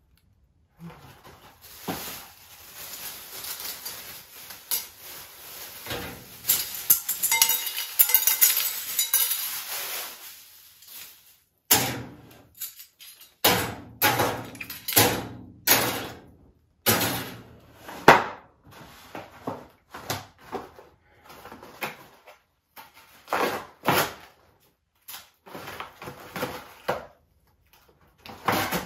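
A Hungry Man TV-dinner box and its plastic bag being handled and torn open. A dense crinkling crackle runs for about the first ten seconds, then gives way to a string of separate sharp rips, rustles and knocks as the cardboard is torn.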